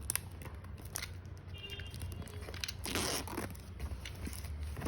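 Plastic wrapping on a product box being handled and peeled off: crinkling and rustling with scattered small clicks, the longest rustle about three seconds in.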